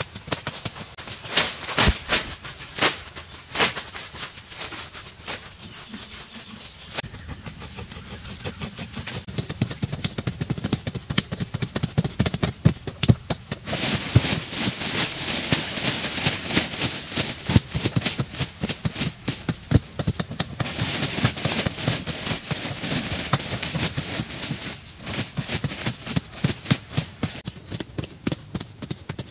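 Wooden digging poles repeatedly striking and loosening packed earth, a steady run of dull thuds with soil scraping and crumbling. A thin, steady high whistle runs through the first several seconds.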